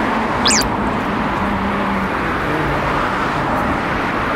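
Steady road traffic noise from cars passing, with a brief high squeak about half a second in.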